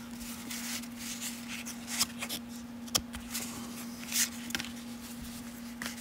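Stack of freshly unwrapped baseball cards shuffled and slid against each other in the hands: soft scrapes and rustles with a couple of sharp card snaps, over a steady low hum.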